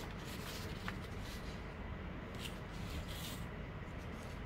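Sheets of paper handled and slid across a tabletop: a light tap about a second in and a couple of soft swishes, over a steady low hum.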